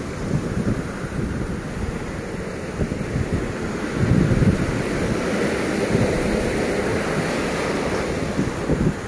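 Small surf breaking and washing up a sandy beach among rocks, with wind buffeting the microphone in low rumbling gusts, strongest about four seconds in.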